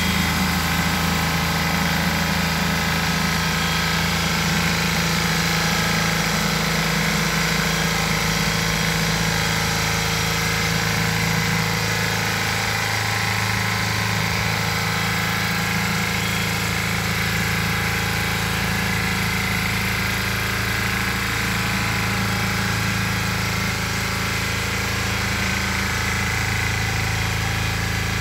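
Valpadana walk-behind tiller with an 8 hp, 359 cc Lombardini engine running steadily while its tines work the garden soil.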